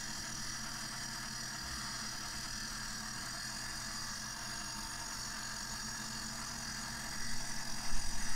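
Electric early-entry concrete saw and its attached dust-extraction vacuum running steadily while cutting control joints in green concrete, a constant motor whine and hum; it gets louder and rougher near the end.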